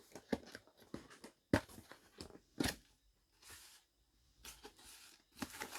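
Cardboard speaker box being opened and handled: scattered knocks and taps, two sharper ones in the first three seconds, a short rustle of packaging about three and a half seconds in, then a run of small taps near the end.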